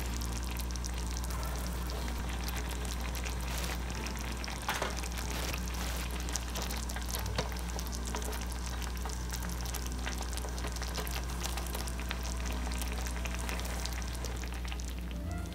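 Sauce bubbling and crackling in a miniature copper frying pan. It is stirred with a tiny wooden spoon partway through, which adds a few small clicks.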